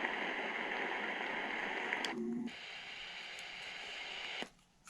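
Relaxor 722 clock radio playing one of its built-in nature sounds, a steady rushing, water-like hiss. About two seconds in there is a short low tone, after which the sound carries on more quietly, then cuts off shortly before the end.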